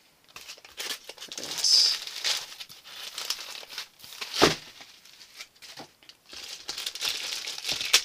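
Laptop packaging being handled: polystyrene packing and plastic wrapping rustling and crinkling as the laptop is worked out of its box, with one sharp knock about four and a half seconds in.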